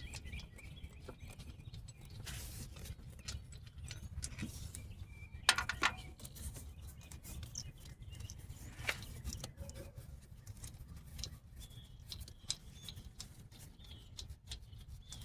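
Hand tools working on the car's metal: scattered clicks and small knocks, with one sharp metallic clink that rings briefly about five and a half seconds in, over a steady low hum.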